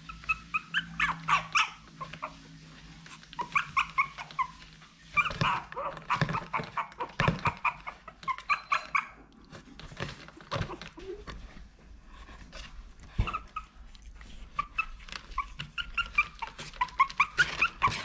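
Maltese puppy whimpering and yipping in repeated short, high-pitched runs, with scattered clicks and knocks on the cardboard box as it tries to climb out.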